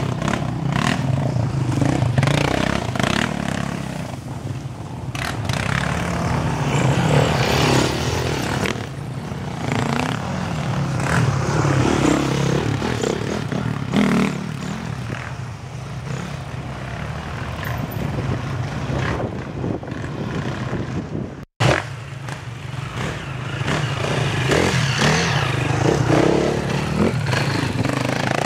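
Off-road sport quad and dirt bike engines revving and riding past on a dirt forest trail, the revs rising and falling. The sound cuts out completely for a split second a little after two-thirds of the way through.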